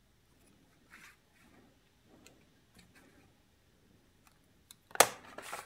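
Scissors trimming the ends of a ribbon bow: faint snips and rustling of ribbon and paper, then one sharp, louder knock about five seconds in.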